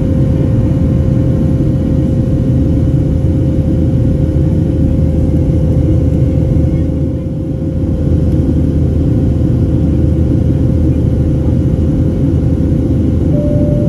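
Airliner cabin noise in flight: a steady engine and airflow rumble with a constant hum, dipping briefly about seven seconds in. Near the end the first, higher note of a two-tone cabin chime sounds.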